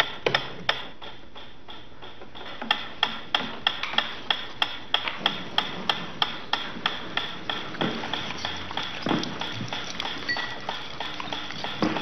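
Mechanical metronome ticking at a steady beat of about three sharp clicks a second, after a brief pause near the start. Here it is the conditioning stimulus that signals food is coming.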